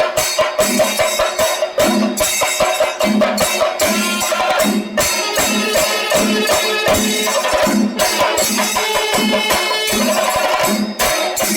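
Music driven by fast, dense percussion, with steady held tones over a quick, even beat.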